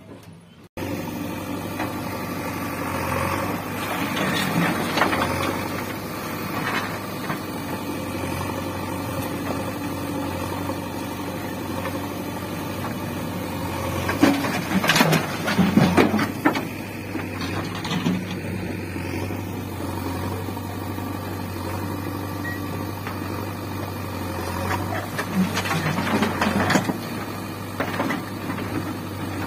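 JCB backhoe loader's diesel engine running steadily, swelling three times as the front bucket lifts and tips loads of rocky soil into a tractor trolley, with stones clattering into the trolley bed.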